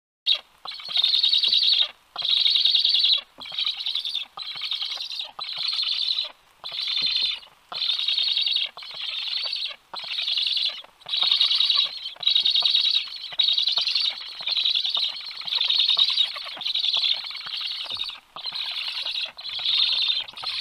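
Black stork nestlings giving repeated begging calls after a feeding: noisy, rapidly pulsed bursts of about a second each, coming roughly once a second.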